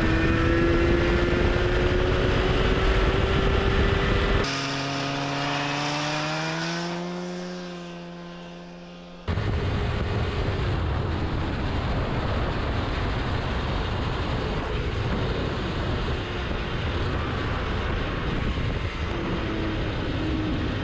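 Arctic Cat 440cc two-stroke twin snowmobile engine driving a motorcycle at road speed, its pitch climbing steadily as it accelerates, half-buried under heavy wind rush on the microphone. About four seconds in, the wind noise drops away and the engine note is heard clearly, rising and then fading. About nine seconds in, the wind rush cuts back in loudly and mostly covers the engine.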